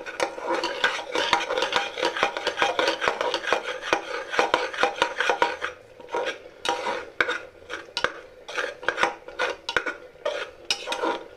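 Metal spatula scraping and clinking against the inside of a pressure cooker as thick masala is stirred and fried. The strokes come fast and close together for the first half, then slower and more spaced out.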